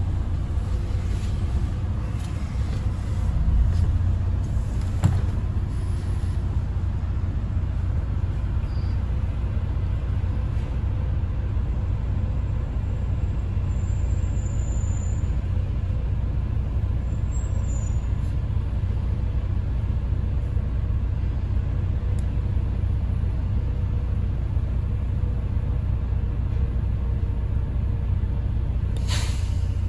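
Bus engine idling, a steady low rumble heard inside the passenger cabin while the bus stands still, with cars passing close by. A short hiss comes near the end.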